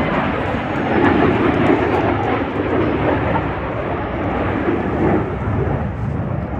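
Aircraft flying past: a loud, continuous roar of engine noise that swells slightly in the first two seconds and again near the end.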